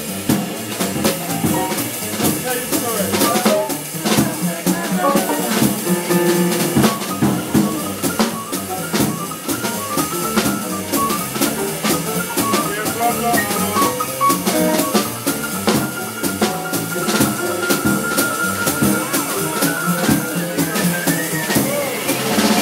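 Live jazz piano trio: an improvised piano solo on grand piano over upright bass and a drum kit with cymbals and rimshots, with no vocals. The piano plays quick melodic runs, then a long stretch of fast repeated high notes that climbs just before the end.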